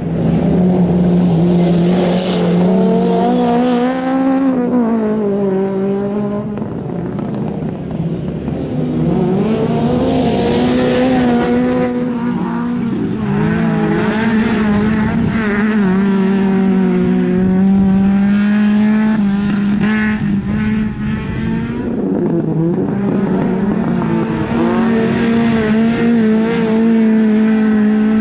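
Fiat Punto autocross race cars revving hard on a dirt track, engine pitch climbing and dropping again and again with gear changes and lifts.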